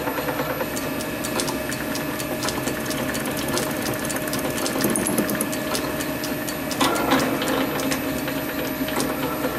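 Small metalworking lathe running with a brass block spinning in a four-jaw chuck, the tool taking a first facing cut to flatten one side. A steady motor-and-gear hum with fast, even ticking.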